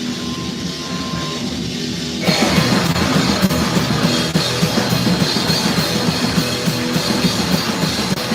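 Live rock band playing: a guitar part carries on its own for about two seconds, then the drums and the full band come in louder.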